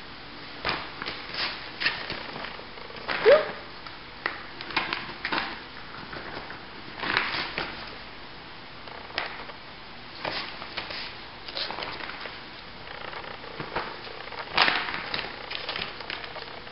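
Woven plastic grocery bag rustling and crinkling in irregular bursts as a ferret scrambles around inside it, with one short rising squeak about three seconds in.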